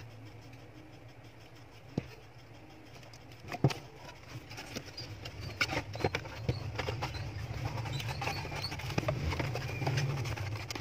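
Hands handling test leads, a boxed multimeter and a paper manual: scattered clicks and light knocks with rustling of paper and cardboard, busier from about four seconds in, over a low steady hum.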